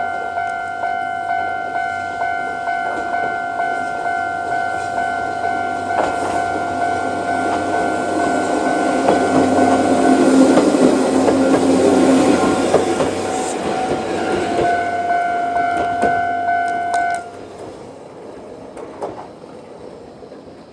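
Japanese railway level-crossing electronic alarm ringing with its normal repeating ding while a Choshi Electric Railway 2000-series electric train runs through, its wheels and motors loudest about ten to thirteen seconds in. The alarm cuts off suddenly about seventeen seconds in, leaving the train fading away.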